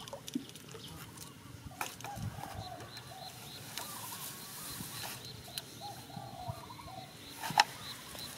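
Birds calling in the background with short calls repeating throughout, joined in the second half by a faint, evenly repeated high chirp. A few sharp knocks cut in, the loudest about seven and a half seconds in, as the bamboo basket trap and its pole are handled.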